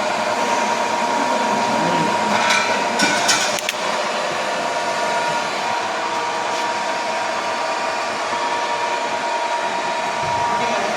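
Okuma & Howa vertical milling machine running steadily, a constant motor and gear hum with a thin high whine, and a short rattling clatter about two to three and a half seconds in.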